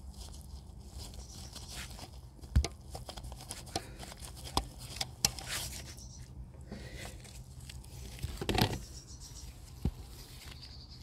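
Scattered clicks, light knocks and scraping of hands and tools handling fuel injector and fuel line parts in an engine bay, with a louder clatter about eight and a half seconds in, over a low steady hum.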